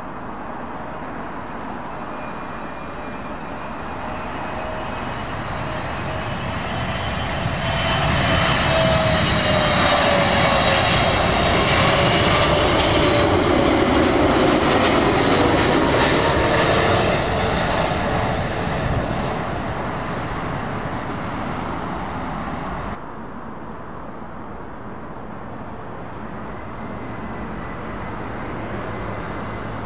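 Boeing 777-300ER's GE90 jet engines passing low overhead on final approach: the jet whine builds, peaks and falls in pitch as the airliner goes over, then fades. It cuts off abruptly near the end to the fainter sound of another distant jet.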